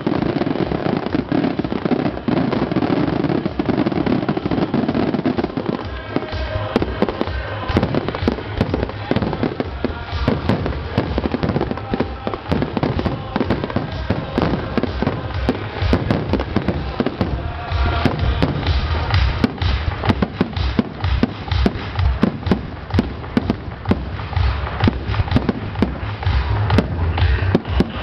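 Aerial firework shells bursting in quick succession, their sharp bangs overlapping almost continuously and growing denser after the first few seconds.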